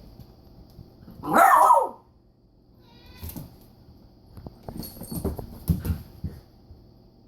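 Basset hound–Labrador cross puppy barks once, loud, about a second in, followed later by scattered knocks and scuffling thumps.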